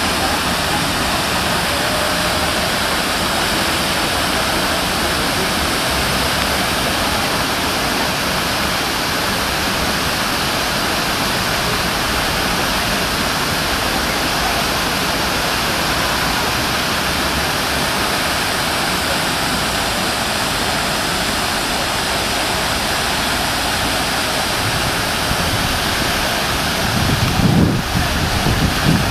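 Large plaza fountain's many water jets splashing down into the basin and spilling over its rim: a steady, even rush of water. A low rumble comes in briefly near the end.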